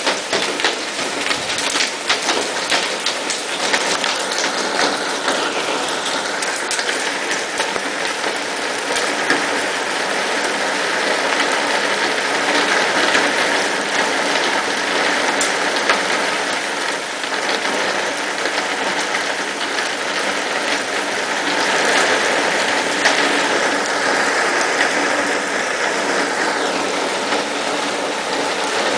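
Hail and rain falling hard, a dense steady hiss full of sharp ticks from hailstones striking surfaces, with a faint steady hum beneath it.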